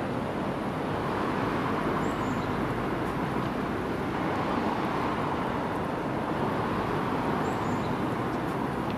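Steady city street traffic noise, an even wash of vehicle sound.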